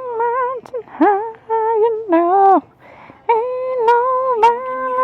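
A woman singing without accompaniment. She holds long, drawn-out notes with vibrato in several phrases, and pauses briefly a little before the midpoint.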